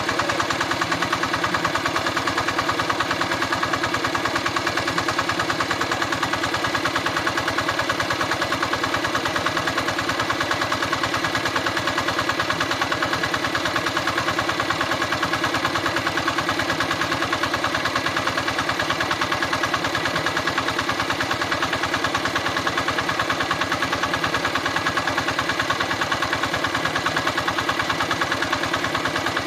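Diesel engine driving an irrigation water pump, running steadily at constant speed with an even, rapid beat.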